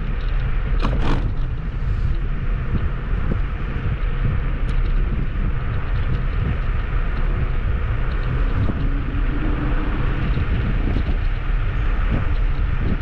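Kugoo G2 Max electric scooter on the move: steady low tyre rumble and wind buffeting the microphone, with a couple of sharp knocks about a second in.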